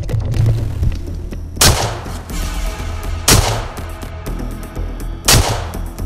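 Three loud gunshots from a hunting gun, spaced about two seconds apart, each ringing out briefly after the crack.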